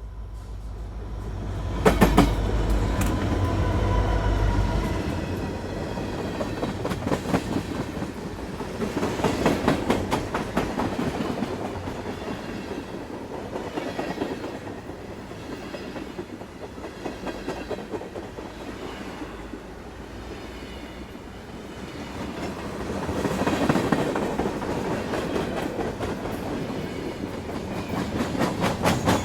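Train running on the rails: the wheels clack over rail joints in uneven clusters over a continuous rumble, and the sound swells and fades several times. A deep low rumble sits under the first few seconds.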